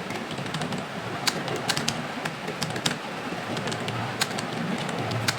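Computer keyboard keys being pressed in slow, irregular clicks over a steady background hiss.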